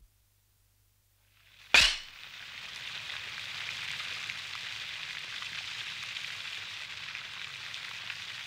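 A film clapperboard snaps shut once, a sharp clack, followed by the steady hissing splash of a fountain jet falling into a pond.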